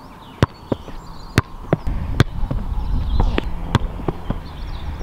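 Outdoor football (soccer) bicycle kick: a string of sharp knocks and thuds from the ball being struck and the player landing on the grass, with a low rumble through the middle.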